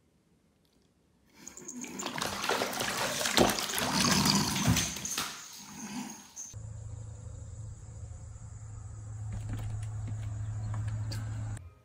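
A cat falls into a filled bathtub and splashes and thrashes in the water for several seconds, starting about a second in. About six and a half seconds in it cuts to a quieter steady low hum.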